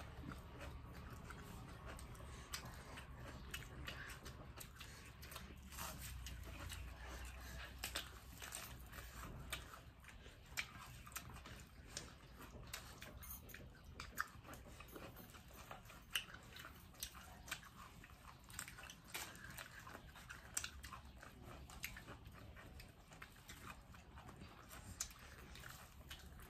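Faint chewing and crunching as people eat singju, a Manipuri salad, by hand, with many short, sharp crunches at irregular intervals.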